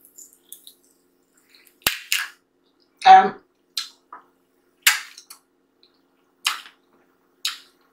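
Close-up eating mouth sounds: a string of short, sharp wet smacks and sucks from licking chicken off the fingers, about six of them spread a second or so apart, with one very sharp click near the second mark and a short voiced sound about three seconds in.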